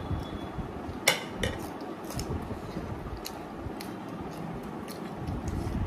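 A metal spoon or fork clinks once sharply against a plate about a second in, followed by a few fainter clicks of cutlery and dishes, over a low steady background hum.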